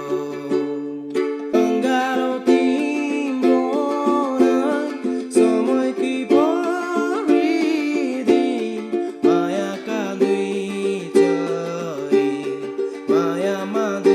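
Music: held chords over a moving bass line, with a melody above that slides and bends between notes.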